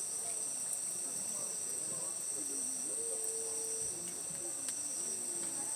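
Steady chorus of crickets or other night insects, a continuous high-pitched trill, with faint voices talking underneath.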